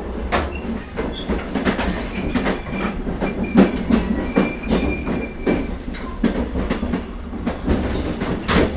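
Moving train running over the rails: a steady low rumble with irregular clicks and clacks of the wheels over rail joints, and a faint thin whine for a few seconds in the middle.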